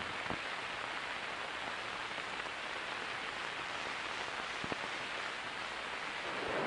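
Steady hiss of an old film soundtrack, with a couple of faint clicks.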